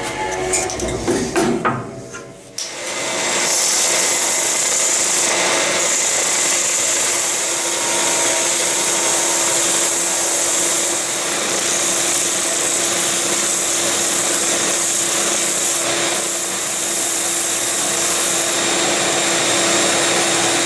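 A bandsaw dies away over the first couple of seconds. Then a Ridgid oscillating edge belt/spindle sander runs steadily, sanding the curved edge of a birch plywood piece, with a constant hum under a dense rushing noise.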